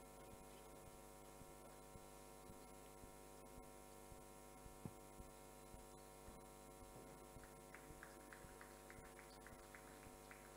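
Near silence: a faint steady electrical hum with faint, regular ticking about twice a second.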